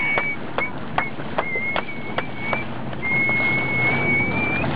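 Short whistled notes at one pitch alternating with sharp clicks, about two or three clicks a second, then a single long whistle rising slightly near the end. The boat's engine hums low and steady underneath.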